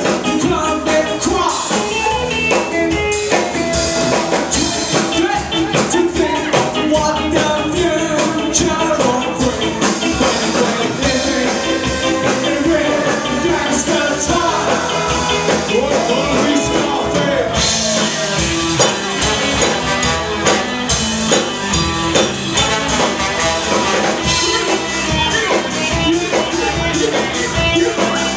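Live ska band playing: brass (saxophone and trombone) over electric guitars, bass and a drum kit, with some singing, loud and continuous.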